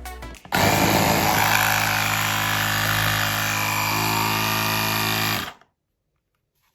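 Ipflin cordless portable tire inflator's electric compressor running for about five seconds with a steady mechanical hum, its pitch shifting slightly about four seconds in, then switching off abruptly.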